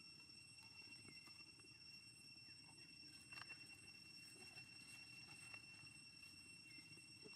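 Near silence: a faint background hiss with a steady high-pitched tone and a few faint ticks.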